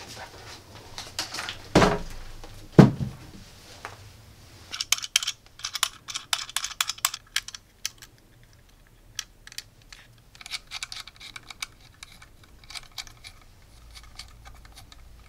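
Two heavy thumps about two and three seconds in, then rapid small clicks and rattles, thinning out after about eight seconds, as speaker wires are fastened into the gold-plated binding posts on a small aluminium Bluetooth amplifier.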